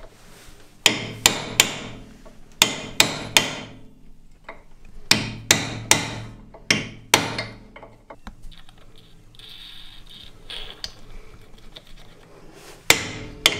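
Hammer blows on the rust-seized adjuster screw of a VW Beetle rear drum brake backing plate: sharp, ringing metal-on-metal strikes in quick runs of three, then a few seconds of faint scraping before two more blows near the end. The adjuster is so rusted and stuck that the hammering is getting nowhere.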